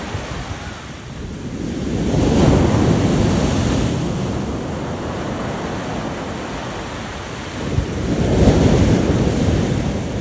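Sea waves washing in, swelling twice (about two seconds in and again near the end), with wind rumbling on the microphone.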